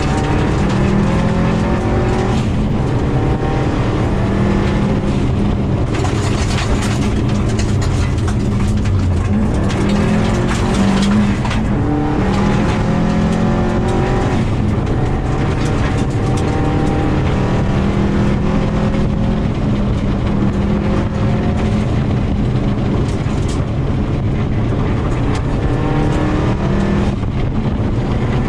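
2000 Subaru WRX's turbocharged flat-four engine working hard on a gravel rally stage, its pitch climbing and dropping back over and over through gear changes and corners. Gravel noise and the rattle of stones run under the engine throughout.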